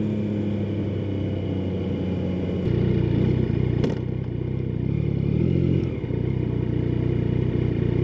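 Yamaha XSR900's inline-three engine through a Scorpion slip-on exhaust, running low and steady, then revved up and down a few times from about three seconds in. There is one sharp click near the fourth second.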